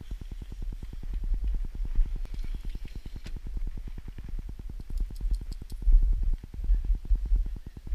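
Wind buffeting the camera's microphone: a low rumble that swells and fades in gusts, loudest about six seconds in.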